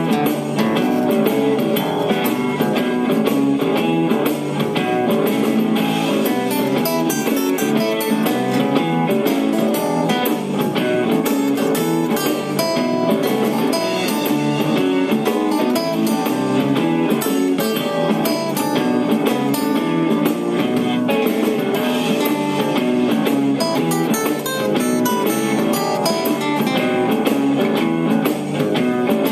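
Cutaway steel-string acoustic guitar played with the fingers: a steady, unbroken run of blues riffs and chords.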